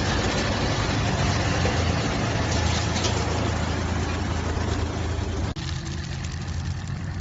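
55 kW wood chipper running and chipping wood: a loud, dense grinding noise over the steady low hum of the machine. About five and a half seconds in, the chipping noise drops off abruptly, leaving the machine running more quietly.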